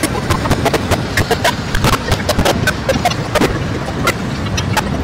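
Glitched, digitally broken audio: dense, irregular clicks and crackles over a rough, steady noise.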